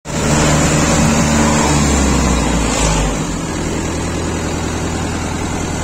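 Mahindra tractor's diesel engine running as the tractor drives through water, with a steady rush of splashing water. The engine note eases a little about three seconds in.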